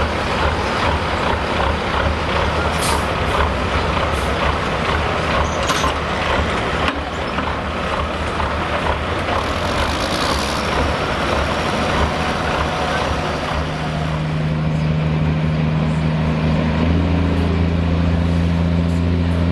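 Semi truck diesel engines running, with a few short air-brake hisses in the first half. From about two-thirds of the way in, a steady deep engine hum grows louder and holds.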